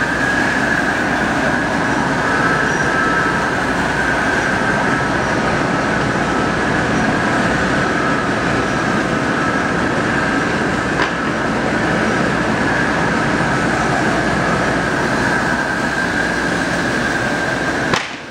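Foam convoluter running: a steady mechanical noise with a constant high whine over it.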